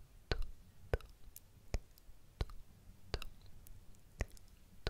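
Sharp, separate clicks very close to a sensitive ASMR microphone, about seven of them, coming roughly every two-thirds of a second at an uneven pace.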